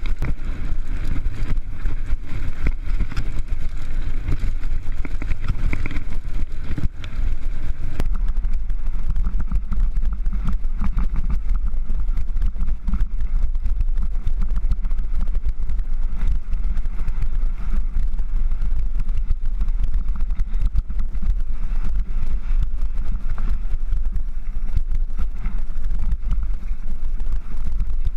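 Mountain bike rattling and crunching over a rocky gravel trail, with many small knocks, under a steady heavy rumble of wind on the action camera's microphone. The noise changes character abruptly about eight seconds in.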